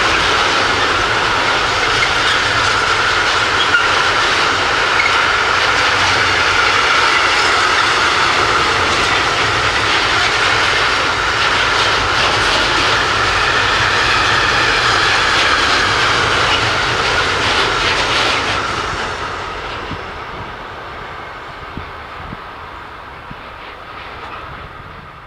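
Long intermodal freight train of container flat wagons rolling past close by, a steady loud noise of steel wheels on rails. It fades away over the last several seconds as the end of the train passes and moves off.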